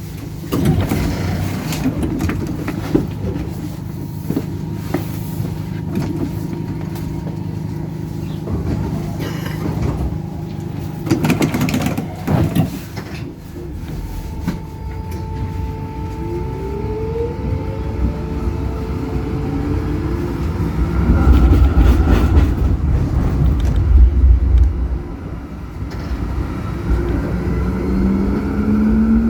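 Zürich tram running along its line, with a steady low drone and scattered knocks. A whine rises in pitch about halfway through and again near the end as the tram gathers speed. A heavy low rumble, the loudest part, comes about two-thirds of the way through.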